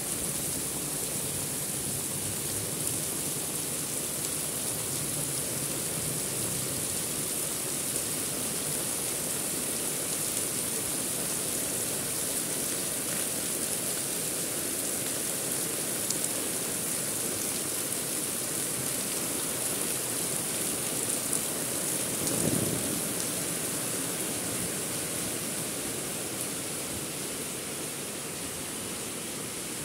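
Heavy rain falling in a steady, even hiss, with one brief louder low rush about two-thirds of the way through.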